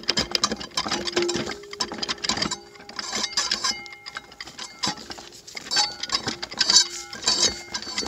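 A TH350 transmission's drum assembly being wiggled and turned to line up its clutch plates: quick, irregular metallic clicking and rattling of plates and splines, with short ringing tones here and there.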